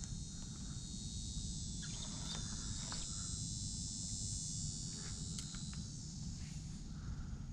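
Steady, high-pitched buzzing of insects, several tones held together and loudest in the middle, over a constant low rumble, with a few faint clicks.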